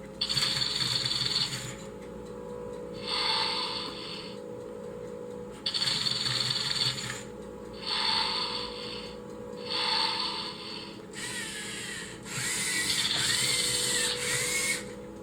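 Lego EV3 Mindstorms servo motors whirring in short bursts of about a second, every couple of seconds, as the EV3D4 robot drives and turns under remote control. Near the end comes a longer burst of about three seconds with a whine that rises and falls.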